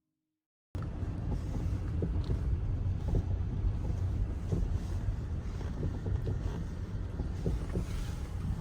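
Wind buffeting the microphone, a steady low rumble with scattered faint clicks, starting suddenly under a second in.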